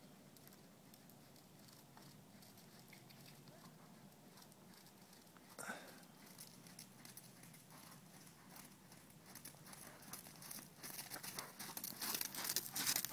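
Horse's hoofbeats on the soft sand of a riding arena, a fast, even patter that grows louder near the end as the horse comes close.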